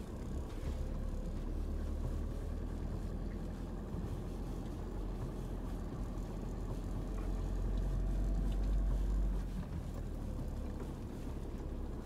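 A utility vehicle's engine and cab rumble, heard from inside the cab as it drives off-road through long grass. The rumble grows a little louder about two-thirds of the way through, then drops back.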